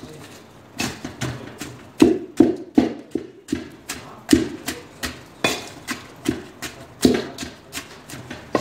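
Wooden spatula pounding date paste and plain biscuits in a stainless steel bowl, crushing the biscuits into the dates. A run of knocks and dull thuds, about two a second and somewhat irregular, beginning about a second in.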